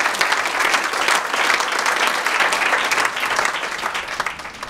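A roomful of seated people applauding: dense, even clapping that thins out near the end.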